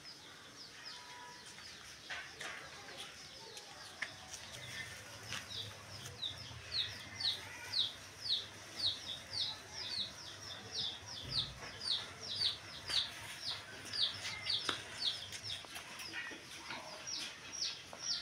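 Chicks peeping: a run of short, high, falling peeps, about two or three a second, growing louder from about five seconds in.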